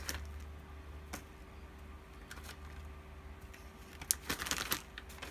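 Light clicks and taps of a clear plastic container and miniature model trees being handled, sparse at first, then a quick cluster of taps about four seconds in. A faint steady hum runs underneath.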